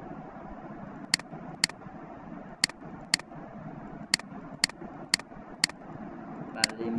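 Computer mouse button clicking: about nine sharp clicks, roughly half a second apart and mostly in pairs, over a steady background hiss.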